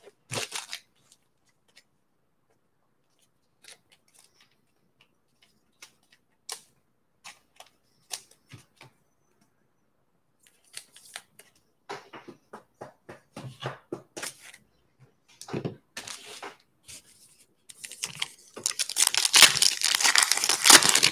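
A few scattered small clicks and handling noises, then growing rustles, and in the last few seconds a trading card pack's wrapper crinkling loudly as it is torn open.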